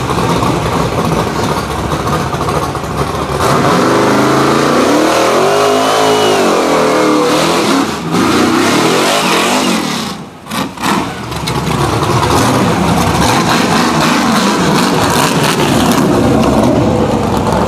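Rock bouncer race buggy's engine revving hard at full throttle, its note swinging up and back down about six seconds in, with a brief drop in the sound about ten seconds in before it picks up again.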